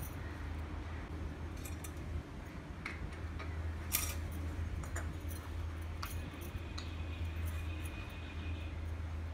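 Light clinks and taps of small glass kerosene lamps and a brass lantern being set down and moved about on a tiled floor, a handful of separate knocks with the sharpest about four seconds in, over a steady low hum.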